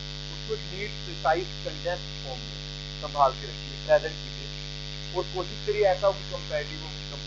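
A steady electrical mains hum runs under a man speaking in short, separate phrases.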